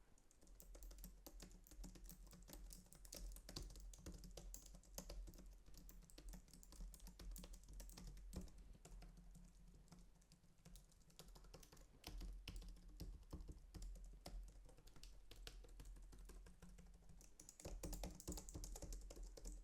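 Faint typing on a Logitech Craft wireless keyboard: rapid, irregular key clicks that keep going, with a couple of short lulls.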